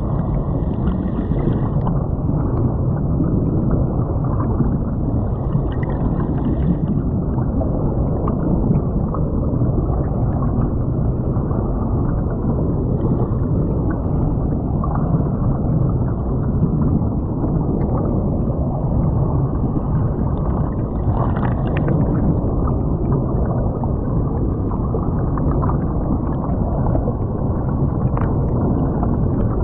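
Creek water rushing and gurgling around a camera lying underwater on the creek bed, heard as a steady, muffled low rumble with air bubbles streaming past.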